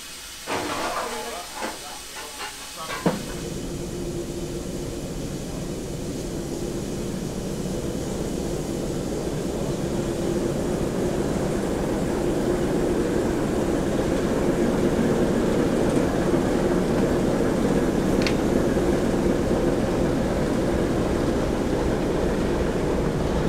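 BR Class 11 diesel-electric shunter's engine running as the locomotive moves past, its steady drone growing louder as it draws near.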